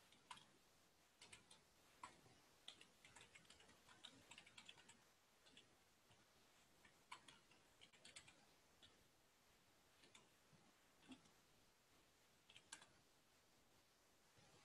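Faint typing on a computer keyboard: irregular runs of light key clicks with short pauses between them, as a database query is typed in.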